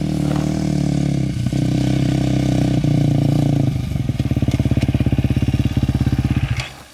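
Dirt bike engine running steadily, then chugging in quick even pulses at low revs for about three seconds before cutting off suddenly near the end.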